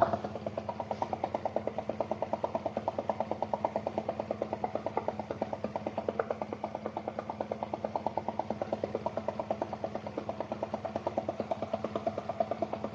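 Rapid, even knocking from the differential of a VW Passat B3 2.8 VR6's drivetrain, over a steady hum. The owner puts the knock in the differential itself, not the CV joints, and feels the beat through the gearbox.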